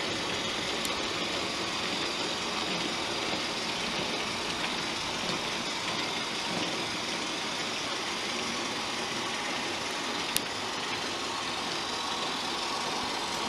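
OO gauge model locomotive's DCC sound decoder playing a steady engine sound through its small speaker as trains run on the layout, with a single click about ten seconds in.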